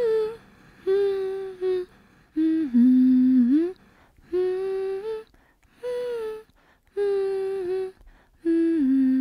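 A voice humming a slow wordless melody in short phrases of about a second each, with held notes that slide up or down, separated by brief pauses.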